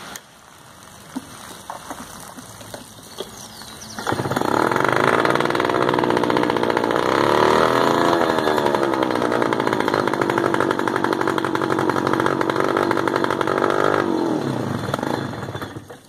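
Yamaha 2 hp outboard motor starting about four seconds in, after a few small clicks. It runs steadily with one brief rise and fall in revs, then cuts out and winds down about ten seconds later.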